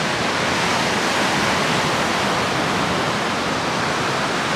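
Surf breaking on a beach, heard as a steady, even rush of noise with no separate events.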